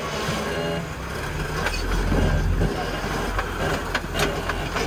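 Jeep Wrangler Rubicon's 4.0-litre inline-six running at a low crawl as the Jeep creeps over slickrock. The low rumble swells about two seconds in, with a few light clicks.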